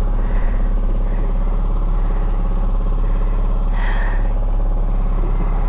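Boat's outboard motor running steadily at trolling speed, a constant low hum, with a brief rustling noise about four seconds in.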